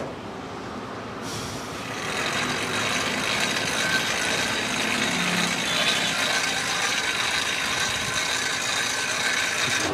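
Handheld air blower starting up about a second in and then running steadily, a hiss of air with a faint whine, blown onto the charcoal under the sandwich toasters to fan the coals hotter.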